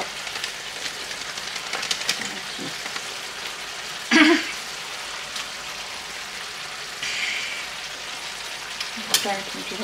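Chicken liver and onions in sour cream sizzling in a frying pan: a steady hiss with fine crackling, and a brief louder sound about four seconds in.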